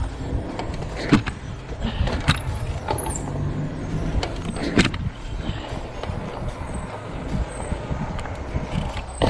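Gios FRX mountain bike rolling on asphalt: a steady rumble of tyres and wind on the microphone, with a few sharp rattles and knocks from the bike over bumps.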